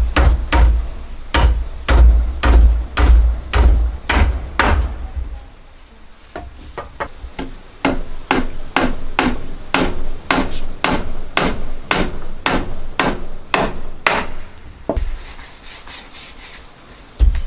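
Hammer striking wood over and over. Heavy blows come about two a second for the first five seconds, then after a short pause a run of lighter, quicker strikes, which stops for about two seconds and starts again near the end.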